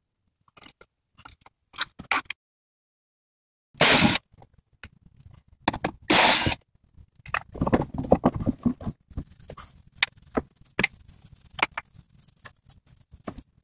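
A cordless drill-driver runs in two short bursts, about four and six seconds in, backing fasteners out of the plastic fender liner. Clicks and knocks of parts being handled come before the bursts, and plastic rattling and scattered knocks follow them.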